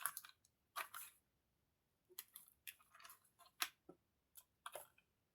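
Tarot cards being handled: a scatter of short, crisp papery snaps and rustles, a few at a time, with quiet between them.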